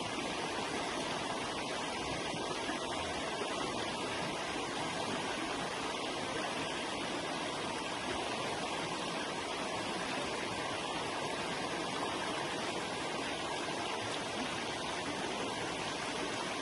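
Forest river flowing, a steady rush of running water.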